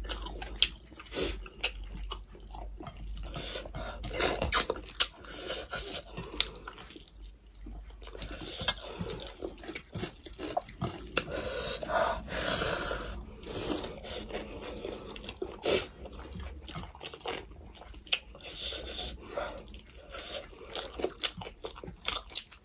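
Close-miked eating: wet, smacking chewing and lip clicks from two people, with soft squishes of food as they mix and pick it up from their plates by hand.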